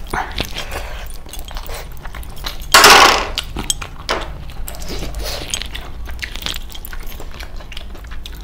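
Close-miked eating sounds: wet chewing, mouth clicks and lip-smacking as a man eats chicken curry and rice by hand. A short, loud noisy burst comes about three seconds in.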